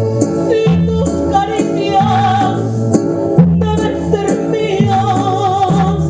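A woman singing a Mexican song with band accompaniment, holding notes with vibrato.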